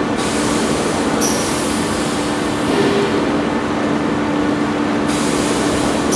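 Giant pot of dolma cooking over a gas burner, heard as a loud, steady rushing noise with a low hum underneath.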